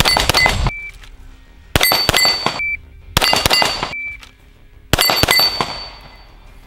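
Four quick strings of 9 mm Glock 19 pistol shots, about a second and a half apart, each string with the ring of hit steel plates dying away after it.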